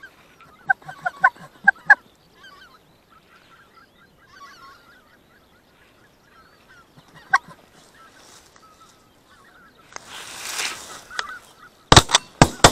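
Greater white-fronted geese honking, a short run of calls in the first two seconds, then fainter calling. Near the end, a quick volley of several shotgun shots fired at the incoming geese.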